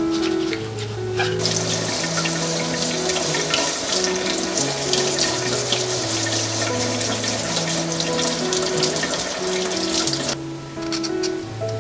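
A kitchen faucet's spray head runs water over a carrot as it is rubbed clean by hand, a steady hiss that starts about a second in and stops near the end. Background music plays throughout.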